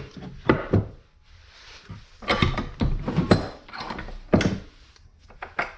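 Handling of metal brake parts and tools at a bench vise: about eight short, irregular knocks and clunks from a brake caliper bracket, its slide pins and a pry bar, one with a brief metallic ring near the middle.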